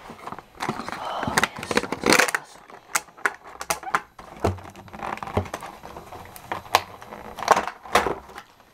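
Cardboard packaging being handled and opened by hand: irregular rustling and scraping with many sharp clicks.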